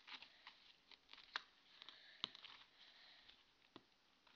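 Faint sticky clicks and smacks of oily marshmallow-based edible slime being worked by hand and scraped out of its container, with a couple of sharper clicks about a second and a half and two seconds in.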